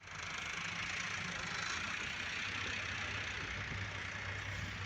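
An engine running steadily at a constant speed, a low hum under an even hiss.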